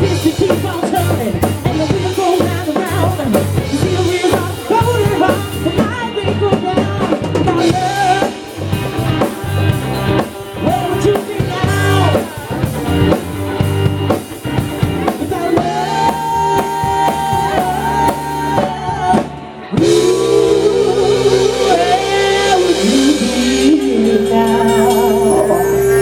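Live band playing: female lead vocal over electric guitar, electric bass and drum kit. About twenty seconds in the drums stop and the band holds a long chord while the voice sustains and wavers.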